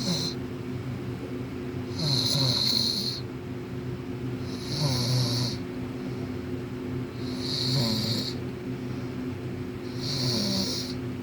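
A man snoring close up, each snore a rasping breath with a hissing edge, coming about every two and a half seconds, four times.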